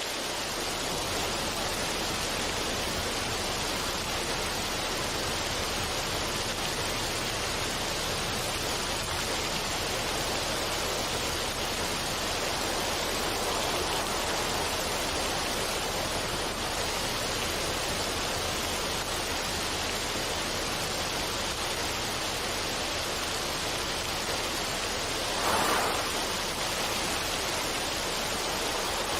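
Steady rush of running water, with a brief louder gush near the end.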